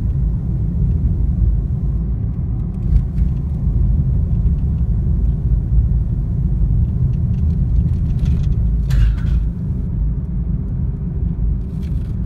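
Car driving at low speed, heard from inside the cabin: a steady low rumble of engine and tyres on the road, with a few brief hissing swells, the clearest about nine seconds in.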